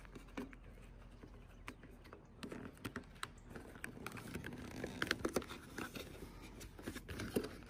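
Faint crinkling and small sharp clicks of gutter repair tape being handled and pressed by hand into a gutter seam, sparse at first and busier from a few seconds in.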